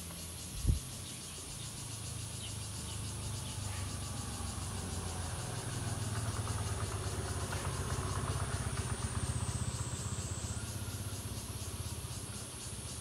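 Outdoor ambience of steady, high-pitched insect chirring over a low rumble that swells through the middle, with a single thump about a second in.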